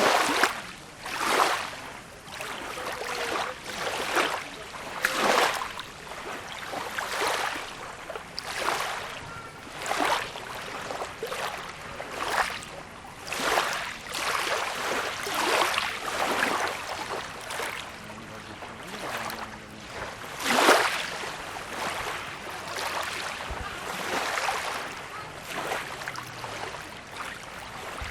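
Small sea waves splashing and lapping, a sharp wash of water about once a second over a steady hiss, with one louder splash about two-thirds of the way through.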